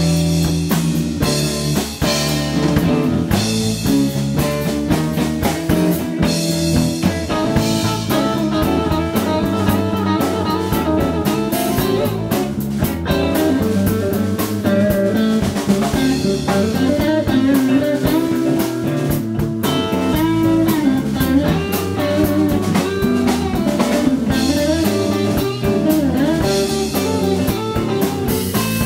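Live rock band playing a song: electric bass, electric guitars and a Pearl drum kit playing together, with steady drumming and continuous guitar and bass lines.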